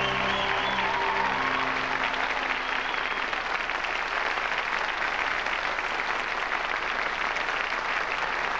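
Large theatre audience applauding steadily, as the last notes of music die away in the first two or three seconds.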